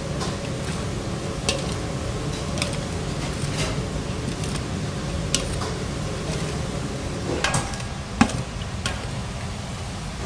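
Steady low hum of a restaurant or kitchen with scattered clinks and knocks of dishes and utensils, the sharpest one a little after eight seconds in.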